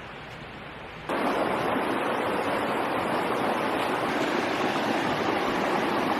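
Steady rushing of a river, faint at first and then much louder and closer from about a second in, as heard at the water's edge.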